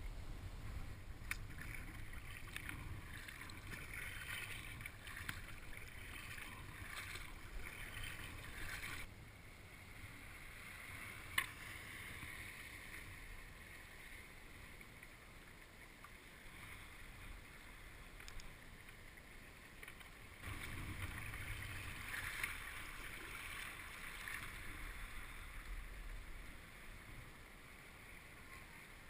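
Water sounds from a kayak on the water, paddle and hull in the water, with a low rumble in two long stretches and a single sharp knock about eleven seconds in.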